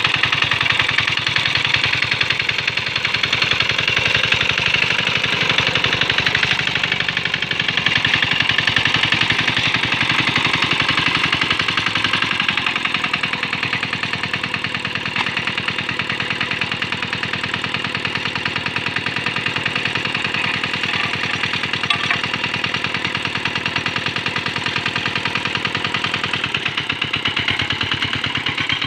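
The small diesel engine of a Quick Capung Metal hand tractor running steadily with an even, rapid firing beat. About 12 seconds in it settles to a slightly lower, lighter note.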